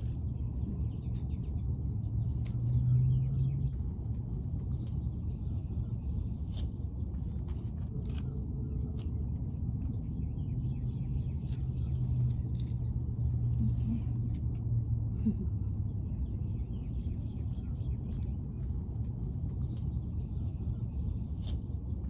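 A steady low rumble with a low hum that swells twice, over which come scattered light clicks and rustles of kitchen scissors snipping green onion stalks among bark mulch.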